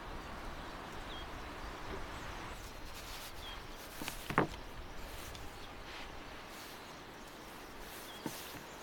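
Kitchen knife slicing through a block of cheese onto a wooden cutting board: a sharp knock about four and a half seconds in, the loudest sound, and a smaller knock near the end. Steady outdoor background noise underneath, with a few faint bird chirps.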